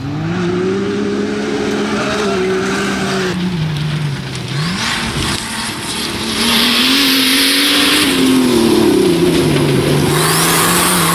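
Off-road race vehicles' engines revving hard, rising and falling in pitch as they are driven across loose dirt. First comes a side-by-side buggy, then, after a cut, a modified Jeep-style off-roader with its tyres churning and throwing dirt.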